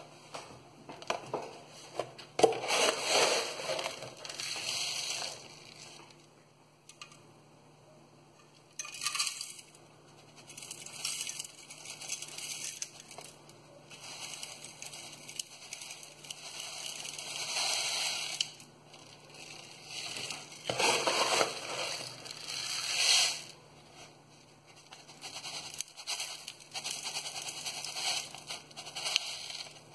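Bonsai substrate of fine gravel and black earth being scooped up and poured from a cut-off plastic bottle into a plastic pot: a grainy pouring of small stones, in about five pours of a few seconds each with short pauses between.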